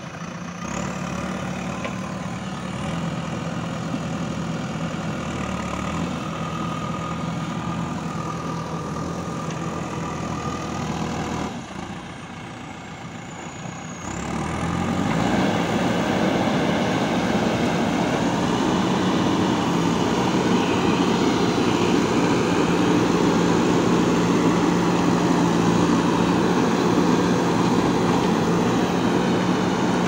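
JCB 3DX backhoe loader's diesel engine running steadily as the machine works. After a brief dip about halfway through, it runs louder for the rest of the time.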